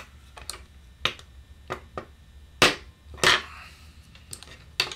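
A small mallet tapping a bent oboe key and its hinge rod against a wooden workbench to straighten the bend: several separate sharp taps, the two loudest about midway.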